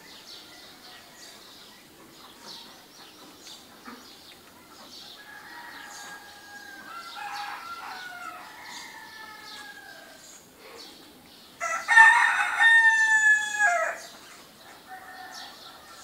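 Small birds chirping faintly, with longer, fainter calls in the middle, then a rooster crowing loudly for about two seconds near the end, its call falling away at the finish.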